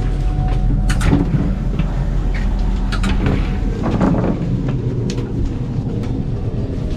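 Steady low rumble of a moving passenger train heard from inside the carriage, with a few sharp clicks and knocks about one, three and five seconds in.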